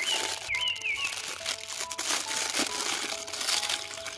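Clear plastic bag crinkling steadily as it is handled and pulled open around a toy, over background music with held notes.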